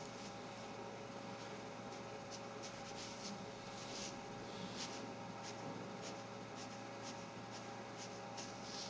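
Fine-tipped fudepen brush pen making short inking strokes on glossy photo-quality paper: about fifteen faint, brief swishes scattered irregularly, over a steady faint electrical hum.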